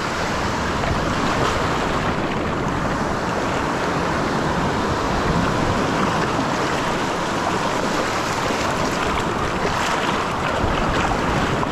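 Steady wash of breaking surf and shallow foamy water, with some wind on the microphone.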